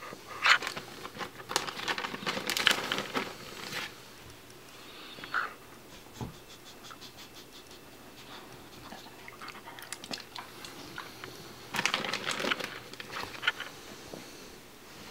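A dog crunching a hard treat: two spells of crisp, irregular crunching, the first in the opening few seconds and the second near the end.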